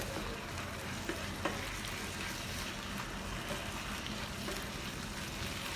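Vegetables and spices sizzling steadily in oil in a pan, with a few light knocks of the spoon as it is stirred.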